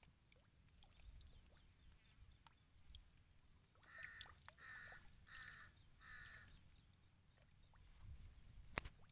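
Faint outdoor quiet in which an animal calls four times in quick, even succession about halfway through. A single sharp click comes near the end.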